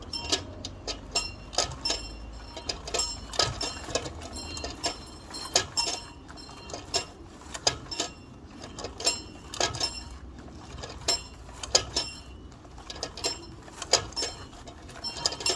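A bell rung on a rope, struck over and over in an uneven rhythm of about two to three strokes a second. Each stroke gives a high-pitched ring that dies away quickly before the next.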